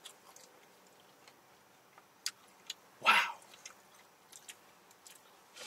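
Quiet eating sounds: soft mouth clicks and chewing, with one loud, short burst about three seconds in.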